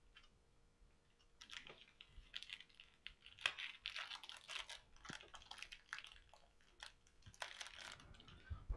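Faint, irregular clicks and rustles of small action-camera accessories being handled and gathered up from the floor.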